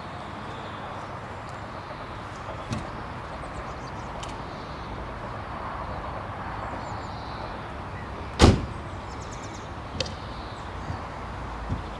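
A car door slams shut about two-thirds of the way through, the loudest sound, over a steady outdoor background hiss. A few lighter knocks and clicks come before and after it as someone climbs into the driver's seat.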